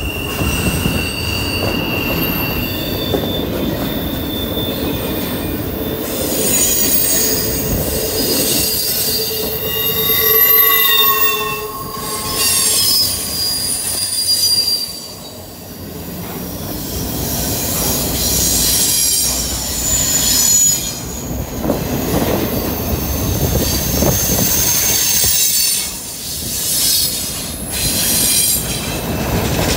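Double-stack intermodal freight cars of a CSX train rolling over a curved trestle: a steady rumble and clatter of wheels on rail, with high-pitched wheel squeals that come and go and shift in pitch, typical of wheel flanges grinding on a curve.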